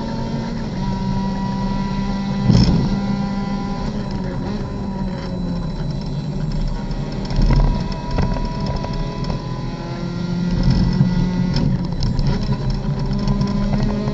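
Race car engine heard from inside the cockpit, running under way as the car slows from high speed, with a sharp knock about two and a half seconds in and another about seven and a half seconds in. The engine note picks up again in the last few seconds as the car accelerates.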